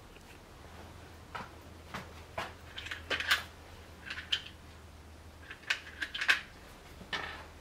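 Irregular light metallic clicks and clinks, a dozen or so, of hand tools and small metal parts being handled while a bike trainer is assembled, with the sharpest clinks around the middle and about six seconds in.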